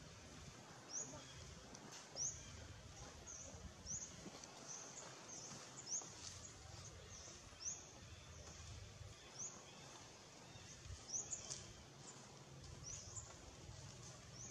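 A bird gives short, high chirps that rise in pitch, repeated roughly once a second, over a faint low outdoor rumble.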